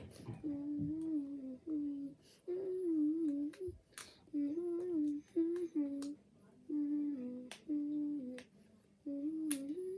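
A child humming a tune to himself in short held phrases, with scattered sharp clicks of Lego pieces being handled.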